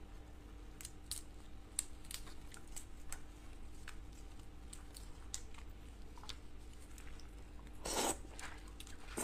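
Shell of a large raw red prawn crackling and tearing as gloved fingers peel it, a scattered string of small sharp clicks. About eight seconds in comes a louder bite into the raw prawn.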